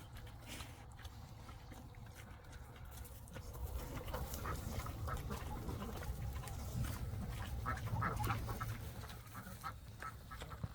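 Farm fowl calling: a run of short quacking calls starts about four seconds in, over a steady low rumble.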